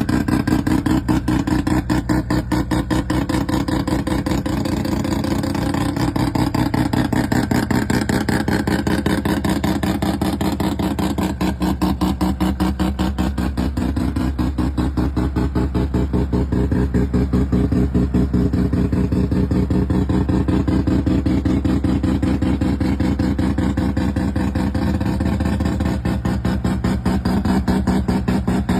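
Mazda RX-7's rotary engine idling with a steady, rapid pulsing, its pitch shifting slightly a few times.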